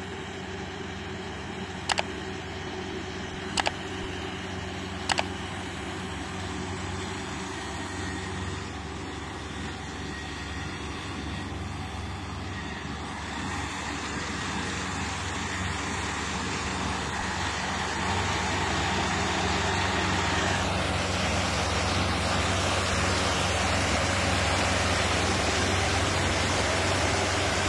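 Kubota PRO588 mini combine harvester's diesel engine running steadily, getting louder and noisier through the middle of the stretch and then holding at the higher level. Three short sharp clicks sound in the first few seconds, about a second and a half apart.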